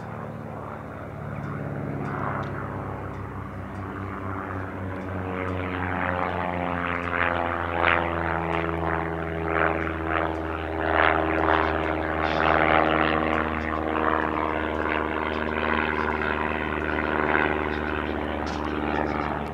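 Piston engines and propellers of a Piper L-4 Grasshopper and a Cessna Bird Dog on a display pass: a steady engine drone that grows louder over the first several seconds.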